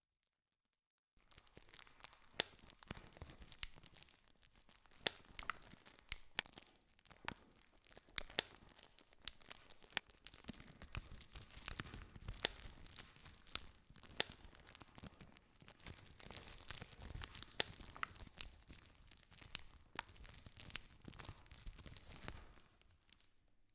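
Campfire crackling, with many sharp pops of burning wood over a soft hiss of flames. It sets in suddenly about a second in after dead silence and fades out near the end.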